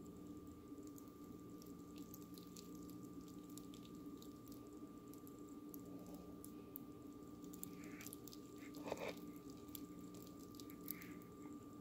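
Faint, scattered small clicks and soft moist squishes, a little stronger about nine seconds in, over a steady faint electrical hum.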